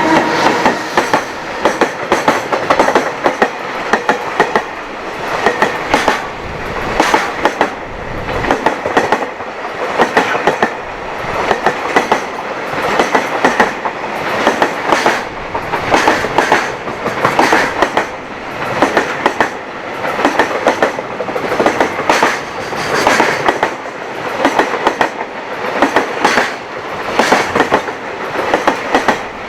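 A long freight train passing at speed, its wheels clattering over rail joints. Clusters of sharp clicks recur every one and a half to two seconds as each pair of wagon bogies crosses the joint.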